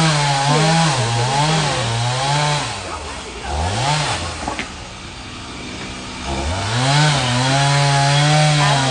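Chainsaw cutting up a tree's limbs, its engine revving up into the cut and holding at speed, then dropping back. It revs up twice more, about three and a half seconds in and again a little past six seconds.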